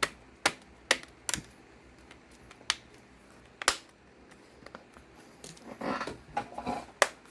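The thin plastic screen bezel of a Lenovo ThinkPad P52 laptop being squeezed back onto the lid, its clips snapping into place as sharp clicks: four in the first second and a half, two more at about the third and fourth second, then some handling rustle and a last, loudest click near the end.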